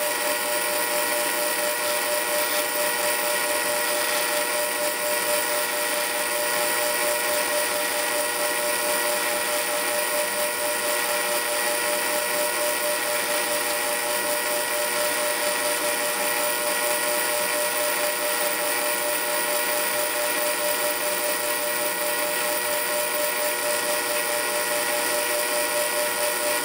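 South Bend Model A lathe running steadily under power while a taper is turned on a nut held on its spindle: an even drone with several constant tones in it.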